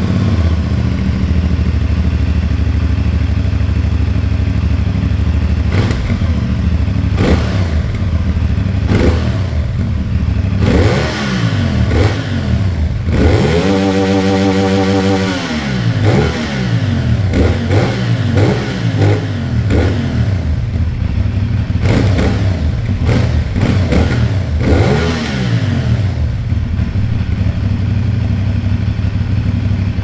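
CF Moto 450NK's 449 cc liquid-cooled parallel-twin with a 270-degree crankshaft, idling and then blipped through a series of throttle revs from about seven seconds in, with one rev held high for about two seconds around the middle, before settling back to a steady idle near the end.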